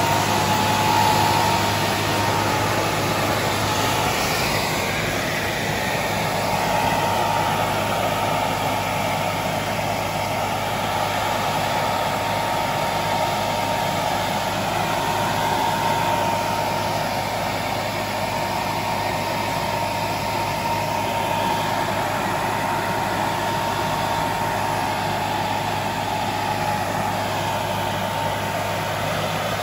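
Tractor-towed air-blast vineyard sprayer at work: the tractor engine running steadily under the rush of the sprayer's large fan blowing mist, with a steady whine from the fan.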